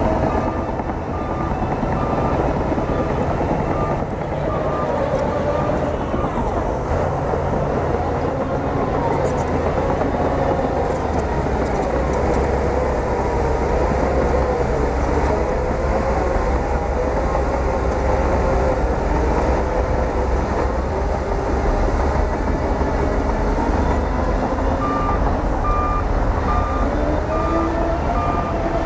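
Bulldozer's diesel engine running steadily under load, with a shifting whine in its note. A reverse alarm beeps at the very start and again near the end.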